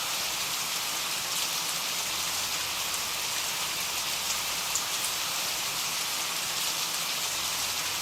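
Steady rain falling on a surface: an even hiss with scattered faint drop ticks.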